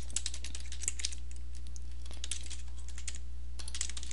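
Typing on a computer keyboard: quick, uneven runs of keystrokes with a short pause about two and a half seconds in, then a fast flurry near the end, over a steady low electrical hum.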